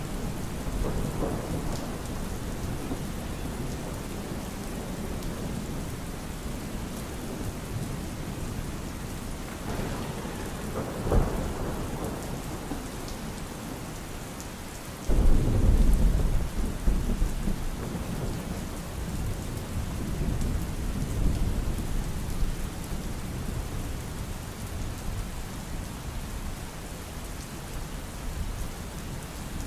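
Steady rain hiss with thunder. There is a short low rumble about a third of the way in, then a sudden, much louder peal about halfway through that rolls on for several seconds before dying away.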